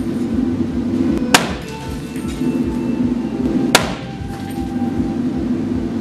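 Two gunshots about two and a half seconds apart, sharp cracks with a short ringing tail, fired at a bullet-resistant glass panel in a live-fire test, over a steady background hiss.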